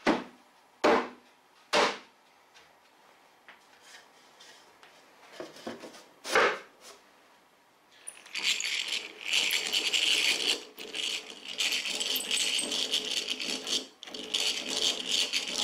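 A few sharp wooden knocks as parts of a dry-fitted cabinet case are handled and set down. Then, from about eight seconds in, a hand-cranked drill bores shelf-pin holes in a wooden side panel through a drilling jig, a steady rattling rasp with two brief pauses.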